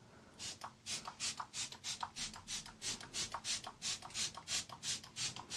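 Rapid spritzes from a MAC pump-spray bottle of setting spray, about five short hissing sprays a second, starting about half a second in.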